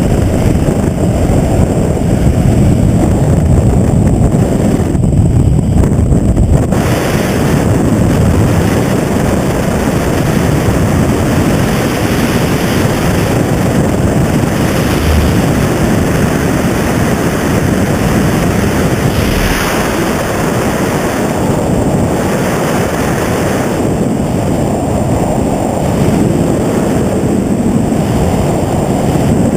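Loud, steady rumble of a vehicle's engine mixed with wind buffeting the microphone.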